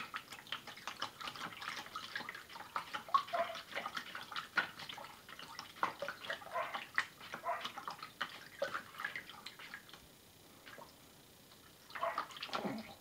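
A cat pawing and scooping water in the bowl of a gravity-fed pet waterer: irregular small splashes and drips. They stop for about two seconds near the end, then start again.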